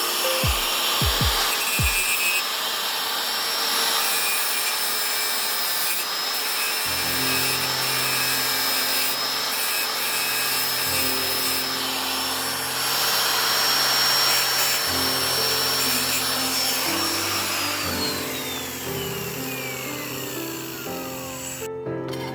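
A power tool running with a steady high whine under a rough grinding noise, then spinning down in a long falling whine near the end. Background music with a changing bass line plays underneath.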